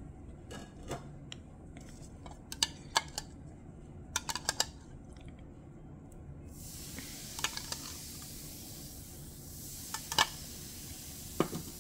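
A few sharp clicks and light clinks of handling for the first several seconds; then, about six and a half seconds in, red vinegar poured onto baking soda in a bottle cap sets off a steady fizzing hiss as the mock volcano foams over, with a few more clicks over it.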